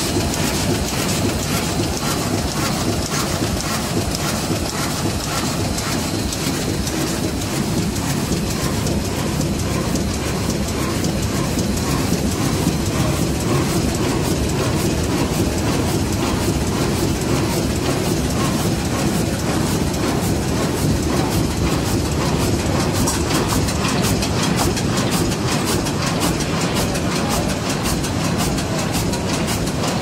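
Automatic flatbed die-cutting machine running at speed, close to 7,000 sheets an hour: a steady, fast mechanical clatter from its sheet feeding and cutting cycle.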